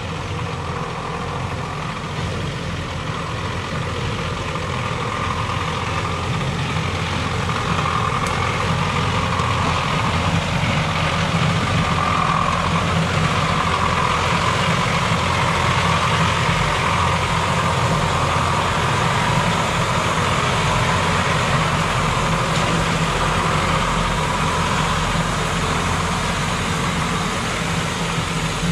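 GAZ-33081 Sadko 4x4 truck driving slowly over a muddy, rutted forest track with its engine running steadily at low revs. It grows louder as the truck approaches and passes, then a little quieter as it pulls away.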